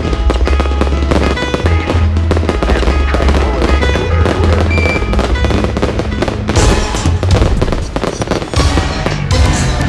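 Fireworks bursting and crackling over a loud music soundtrack with a heavy steady bass. The crackling thickens about two-thirds of the way through.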